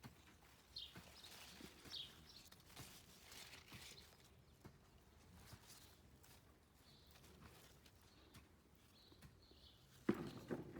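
Quiet outdoor ambience with a few faint, short bird chirps and light scattered rustles. A brief, louder rustle comes near the end.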